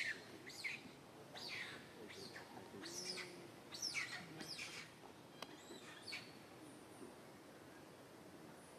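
A run of short, high-pitched chirping calls, each sweeping down in pitch, about two a second, fading out after about six seconds.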